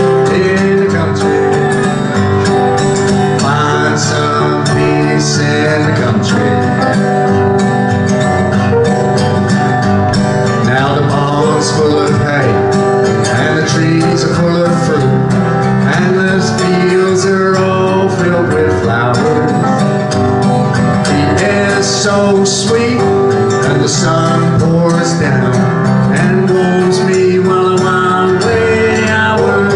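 Live acoustic guitar strumming with piano accompaniment, a man singing along at times.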